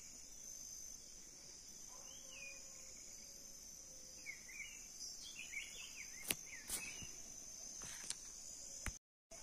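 Insects droning steadily at a high pitch, with short bird chirps now and then and a few sharp clicks in the second half.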